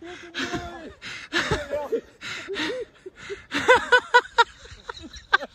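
People laughing hard: breathy, wheezing bursts of laughter with short high-pitched whoops, loudest about four seconds in.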